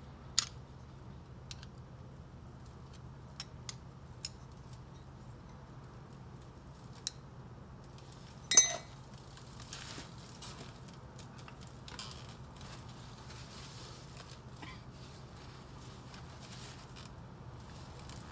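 Light metallic clicks and clinks from metal car parts being handled during an axle seal installation, over a steady low hum. About eight and a half seconds in comes one louder clink that rings briefly.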